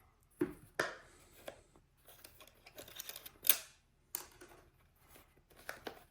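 Packaging of a boxed drill-bit set being handled while someone tries to open it: a string of irregular clicks and knocks with light rustling, the loudest about three and a half seconds in.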